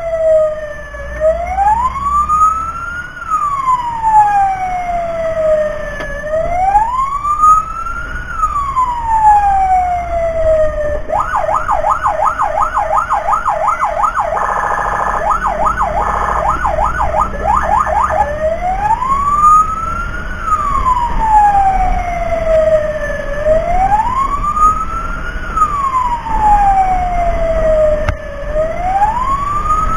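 Fire-rescue truck siren in a slow wail, each cycle rising for about two seconds and falling for about three, over a low rumble. From about a third of the way in it switches for several seconds to a fast yelp of about four cycles a second, then returns to the wail.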